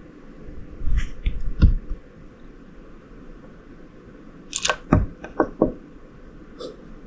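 Light clicks and knocks in two short clusters, about a second in and again from about four and a half to five and a half seconds in, over a steady low hum.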